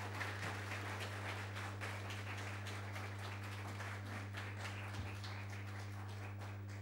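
Audience applauding: many hands clapping in an even patter, over a low steady hum.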